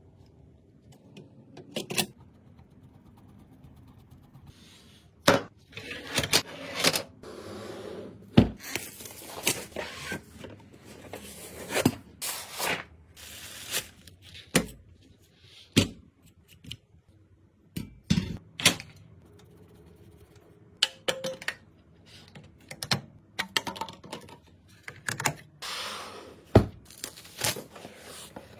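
Computer parts being handled and fitted together by hand: irregular clicks, knocks and taps of hard plastic and metal, with stretches of rustling and scraping.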